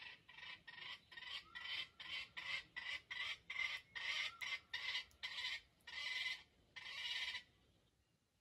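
Wild junglefowl giving a fast run of short calls, about three a second, that stops near the end.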